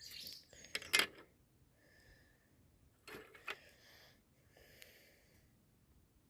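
Drawing strokes on paper: short scratching strokes of a pencil or marker being worked over the page, broken by a few sharp clicks, the loudest about a second in.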